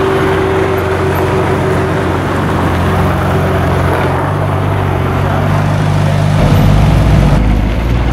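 Ferrari 458 Italia's 4.5-litre V8 running at low revs as the car pulls away, then a deeper, steady V8 idle, the Mercedes-Benz SL 63 AMG's 6.2-litre V8, comes in and grows louder about six seconds in.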